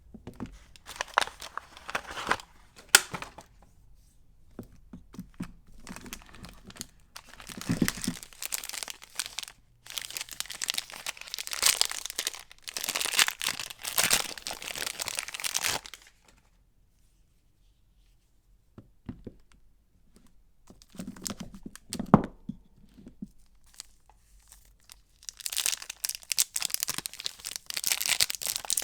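Soap packaging being torn open and crinkled by hand. It comes in uneven bursts of tearing and rustling, with a few seconds of silence past the middle.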